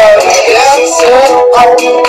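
A woman singing a pop song, with long held notes that glide up and down.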